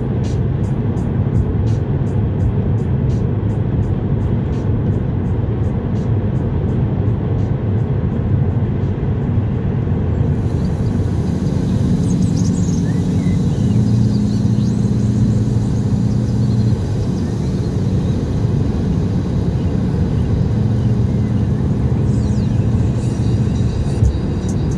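Steady road and engine rumble inside a car at motorway speed, with background music under it whose light, evenly spaced ticking beat fades out about a third of the way in and comes back near the end.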